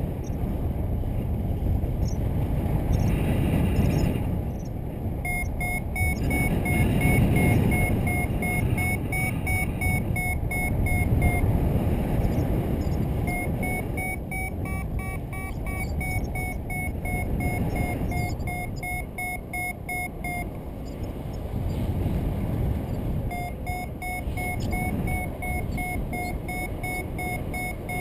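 Paraglider variometer beeping in three long runs of quick, short beeps, the sign that the glider is climbing in lift, over heavy wind rumble on the microphone.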